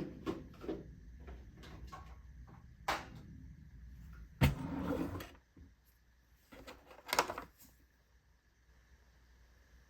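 Household handling noises: light clicks and knocks of things being moved and set down. A louder thump about four and a half seconds in is followed by a short scrape, and another clatter comes near seven seconds.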